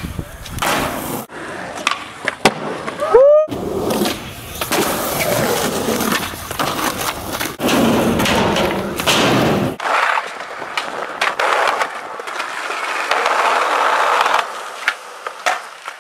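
Skateboard on concrete: wheels rolling, with sharp clacks of tail pops, landings and the board hitting the ground again and again. The sound breaks off briefly about three seconds in and changes character near ten seconds in.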